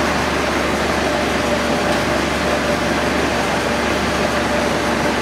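Steady, unchanging machine noise with a faint constant hum, like a fan or similar running machine.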